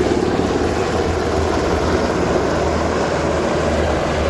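Three MH-60R Seahawk helicopters flying past in formation: a steady rotor and turbine sound, a low hum under a dense rush.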